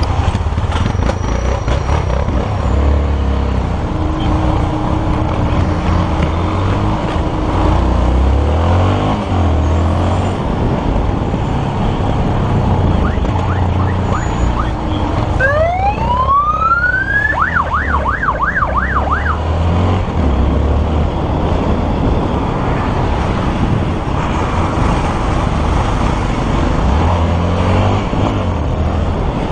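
Police motorcycle riding through traffic, its engine and road noise running steadily. About halfway through, a siren winds up in one rising sweep, then switches to a fast warble for about two seconds.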